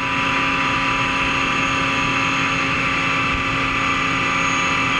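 Live-tool spindle in the turret of a Mori Seiki NL3000Y CNC turning center running steadily at about 2,700 RPM: an even whine with several held tones over a hiss.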